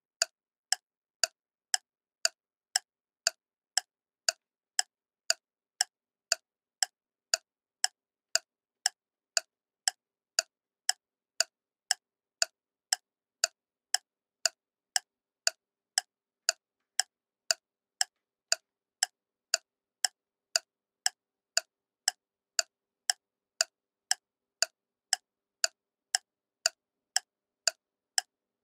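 Ticking clock sound effect, sharp ticks at a steady two a second with dead silence between them.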